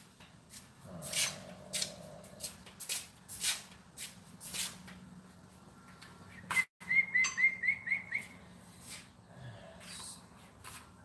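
Scattered knocks and clicks of handling and footsteps, with a quick run of about six short, high chirping squeaks a little past halfway.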